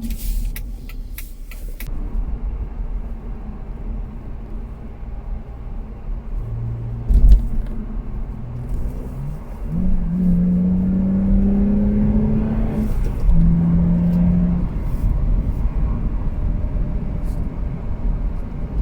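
BMW Z4 E85 2.5i's N52 straight-six engine driving with the soft top closed, over steady road rumble. The engine tone climbs about 10 s in, drops after about 13 s, then holds at a steady pitch. There is a single loud thump about 7 s in.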